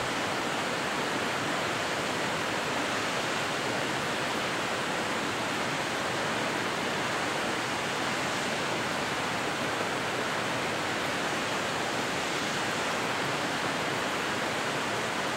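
Steady rushing of stream water, an even hiss with no breaks or changes.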